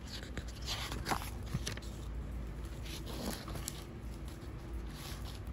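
Soft rustles and light taps from a picture book being handled between read-aloud passages, over a steady low hum.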